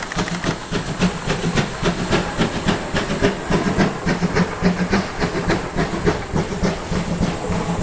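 Steam locomotive working along the line, its exhaust giving fast, even chuffs about five a second over a steady low hum. The chuffs fade in the last couple of seconds.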